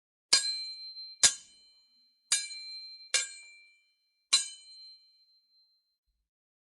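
Sword hits: five sharp metal-on-metal blade strikes, each with a high ringing ping that fades away. The last strike rings the longest.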